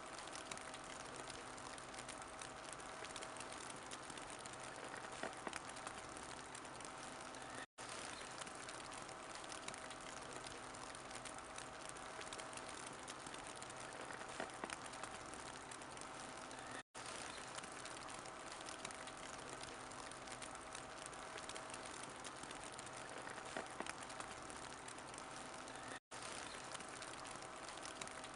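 Wood fire burning in a fireplace: a steady crackling hiss with small scattered pops. The sound cuts out for an instant three times, about nine seconds apart.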